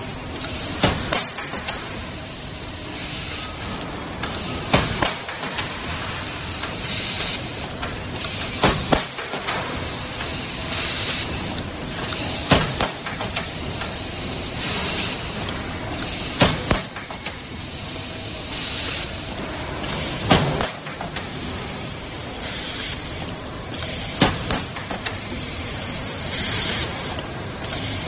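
CNC multi-head stud welding machine firing studs into a sheet-metal panel: a sharp crack at each weld, coming irregularly every few seconds, over a steady hiss.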